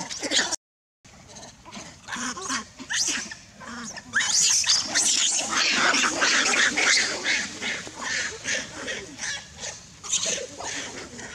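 Macaques screaming and squealing as they chase each other, a dense run of shrill calls that is loudest in the middle. The sound drops out completely for a moment just after the start.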